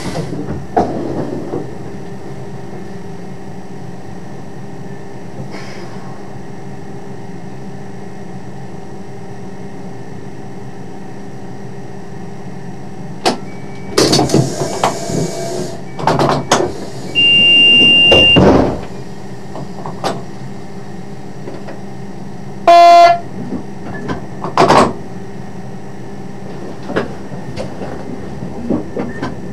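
Idling diesel engine of a DB Class 628 railcar, a steady hum, broken by short hisses, a high beep lasting about a second midway, and one short, loud horn blast about two-thirds of the way in.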